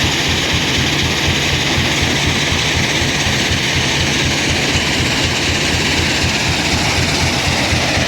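Heavy machinery running steadily at full power, a continuous loud mechanical din with a fast low rattle.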